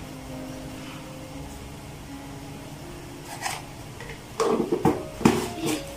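A pan of spiced water heating on the stove under a steady low hum, then a few clinks and knocks of a utensil against the pan in the second half.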